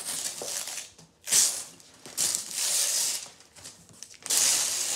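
Wrapping paper being torn off a gift box: four long rips with short pauses between them.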